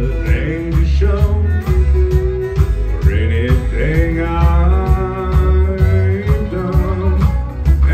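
Live country band playing: fiddle, acoustic and electric guitars over drums keeping a steady beat.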